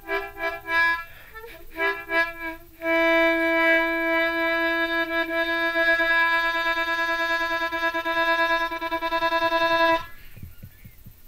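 Harmonica cupped in both hands, played as rapid repeated short chords about four a second, then one long held note with a wavering pulse that stops about ten seconds in.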